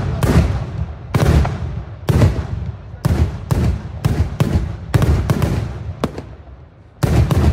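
Daylight fireworks shells bursting overhead as loud bangs, one or two a second, each followed by a rolling rumble. The bangs thin out to a lull about six seconds in, then a quick run of bangs starts near the end.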